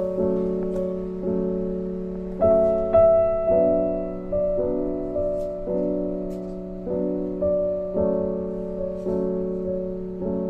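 Slow, soft piano music: chords struck about once a second, each fading before the next.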